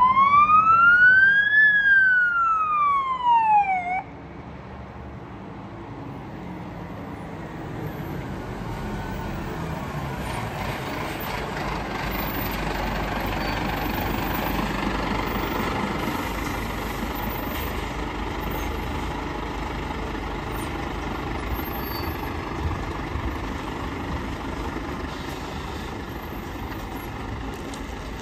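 A fire engine's siren wails, sweeping up and down about two seconds each way, then cuts off abruptly about four seconds in. After that a fire truck's engine runs as it drives slowly past and pulls up, growing louder toward the middle and then easing off.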